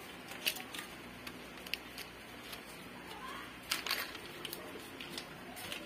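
A sheet of paper being folded and creased by hand on a wooden table: light rustles with scattered small ticks and taps, the sharpest few coming about four seconds in.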